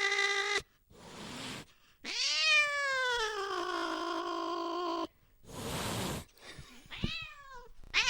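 Angry cat yowling: a drawn-out howl ends just after the start, then a long yowl that rises and slowly falls, with short hisses in between, and a few brief wavering calls near the end.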